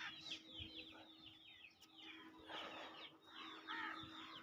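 Faint chirping of small birds, many quick high chirps in rapid succession, with a steady low hum underneath.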